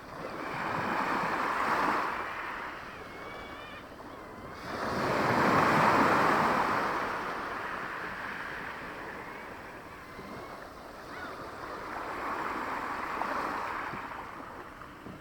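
Small waves of a calm sea washing onto the shore, three swells of surf noise rising and falling, the loudest about five to seven seconds in.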